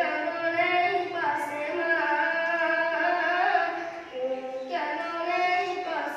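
A boy singing solo and unaccompanied, in long held notes that slide slowly in pitch, in a few drawn-out phrases with short breaks between them.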